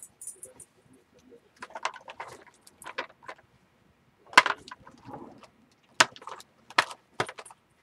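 Small Color Burst powder jars being handled, clicking and knocking against each other and the work surface, with a few sharp knocks in the second half.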